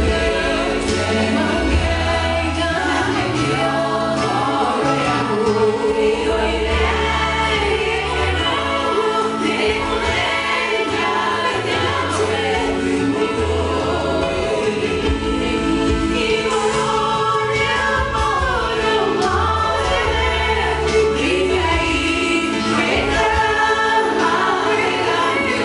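A small vocal group, five women and one man, singing a gospel song together through microphones over a steady bass accompaniment whose notes change every second or two.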